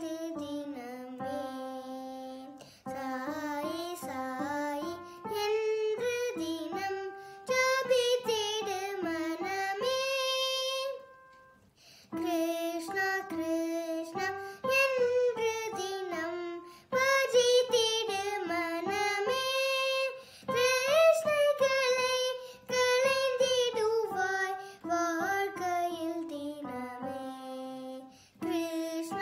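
A young girl singing with bending, sliding pitch while accompanying herself on an electronic keyboard. She breaks off briefly about eleven seconds in and again near the end.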